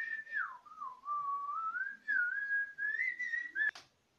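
A person whistling a wavering tune, dipping in pitch about a second in and rising again. The tune breaks off with a sharp click near the end.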